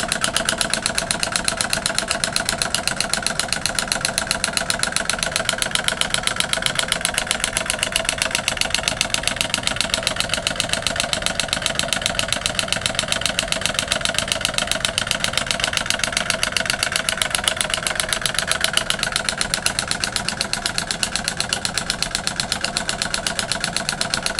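Home-built solenoid motor running on its own: a 12-volt DC solenoid fires once per turn of a VCR video-head flywheel and gives a rapid, even clatter of clicks at a steady pace.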